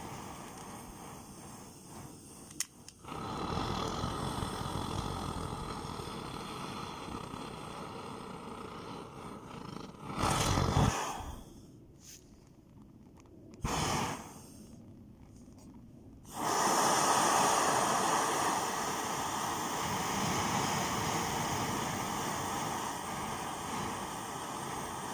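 Petrol pressure burners of a Swiss military two-burner field stove running with a steady rushing hiss. About ten seconds in there is a brief louder rush, and then the sound drops away for several seconds. It comes back suddenly and louder as both burners burn together.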